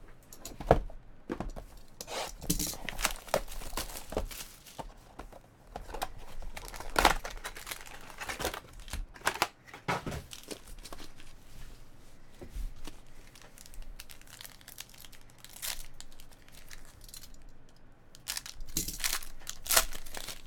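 Foil trading-card pack wrappers crinkling and crackling as a stack of packs is handled, with a pack torn open near the end.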